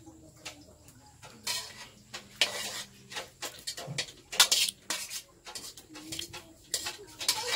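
Metal spoon clinking and scraping against a stainless steel cooking pot, in irregular knocks.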